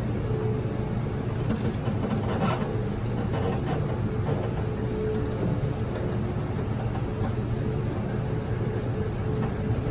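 Running noise at the gangway between carriages of a Taiwan Railways push-pull Tze-Chiang express (E1000 series) in motion: a steady rumble of wheels on rail with a faint steady hum. A couple of faint short squeaks come a few seconds in.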